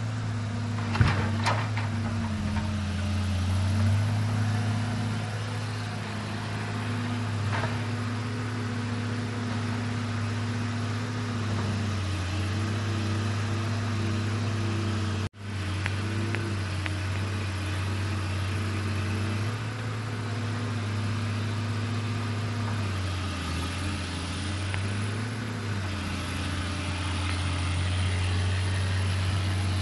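Diesel engine of a log truck's knuckleboom loader running steadily, its note dipping and rising now and then as the hydraulics take up load. A couple of sharp knocks come about a second in, with a fainter one later, and the sound cuts out for an instant midway.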